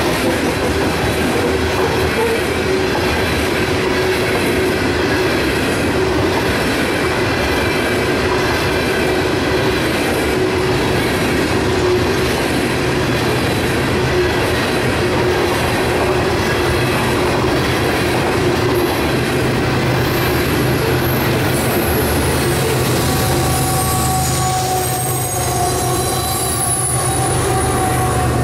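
Loaded coal train's hopper cars rolling past at close range, a dense steady rumble of steel wheels on rail with a regular clacking over the rail joints. Near the end the train sound thins as the last car passes, and other steady tones come in.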